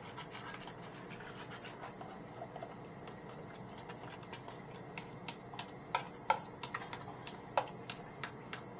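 Kitchen utensil scraping and rubbing against cookware, with a run of sharp clicks and taps over the last few seconds.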